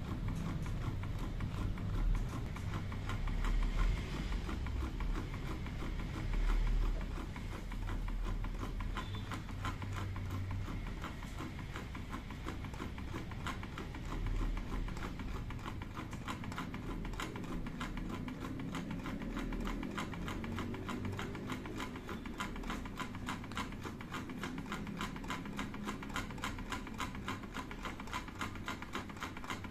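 Homemade soda-can Stirling engine running over a candle flame, its crankshaft and connecting rods clicking in a steady rhythm with each turn of the flywheel, a few clicks a second.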